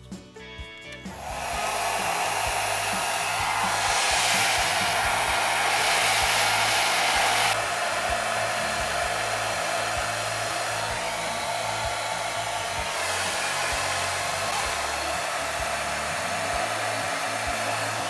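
Xiaomi Mi Ionic hair dryer (CMJ01LX3) switched on about a second in, blowing cold air with a steady whooshing hiss. It gets louder for a few seconds in the middle, then steps down abruptly to a steady level.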